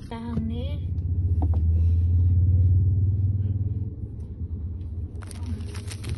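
Low vehicle rumble that swells and fades over about three seconds. Near the end comes the crinkle of a plastic ice-cream wrapper being handled as it is torn open.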